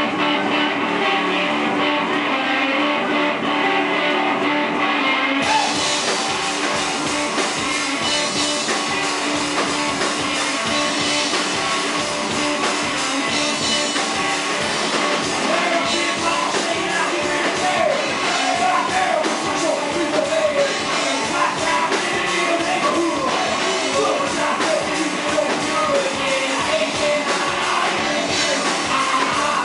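Live blues-rock duo: a resonator guitar plays alone, and a drum kit with cymbals comes in with a steady beat about five seconds in.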